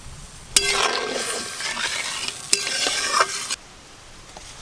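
Hands mixing spice-coated boiled cauliflower florets in a steel bowl: about three seconds of wet rustling and squishing, with two sharp metallic clinks against the bowl, starting and stopping abruptly.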